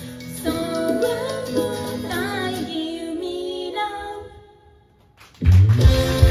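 Idol pop song with female singing over a backing track, fading out about four seconds in. After a moment of near silence, the next song starts loud with a heavy bass beat.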